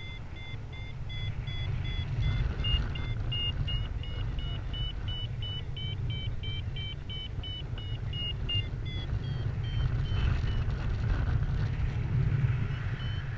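Paragliding variometer beeping in a steady run of short tones, about two or three a second, the sound it makes to signal climbing air; the beeps shift in pitch about two and a half seconds in, stop for a few seconds after about nine seconds, and start again near the end. Under them, wind rushes steadily over the camera microphone in flight.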